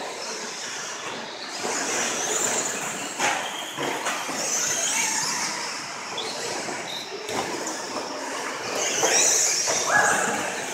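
Radio-controlled stadium trucks racing on a dirt track: a high-pitched whine of motors and tyres on dirt that swells and fades as the trucks pass, with a couple of sharp knocks from landings or hits.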